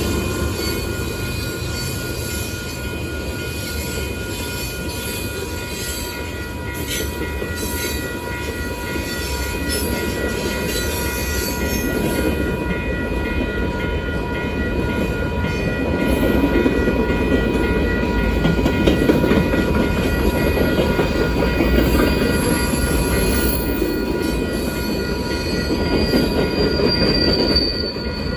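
Freight cars of a long manifest train rolling past, a steady rumble and rattle of wheels on rail that grows louder about halfway through. Several steady high tones hold throughout, and a brief high squeal comes near the end.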